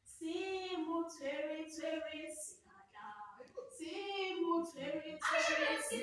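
A woman's voice singing a tune unaccompanied, in held notes, louder near the end.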